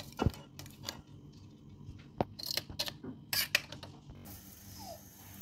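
Scattered light clinks, taps and scrapes of a metal spoon against an aluminium cooking pot as boiled rice is spread in a layer over the biryani masala. A steady hiss starts about four seconds in.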